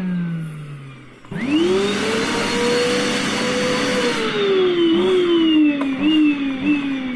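A 1700-watt electric vacuum cleaner motor winding down, then switched back on about a second in. Its whine climbs quickly to full speed and holds there, then slowly eases off, with several short quick rises in pitch like an engine being revved.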